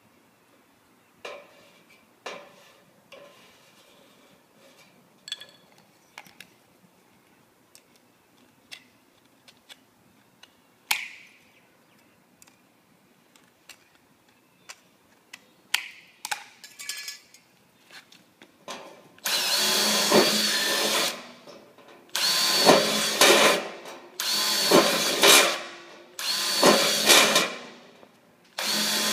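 Cordless drill running in four short bursts while drilling into the base of a metal quad gutter, after a stretch of light clicks and taps from handling and marking metal parts.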